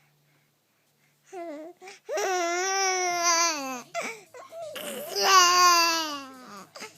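Baby making long drawn-out vocal sounds: after a short quiet start, a brief sound and then two long, loud cries of a second and a half or more, each dropping in pitch at the end.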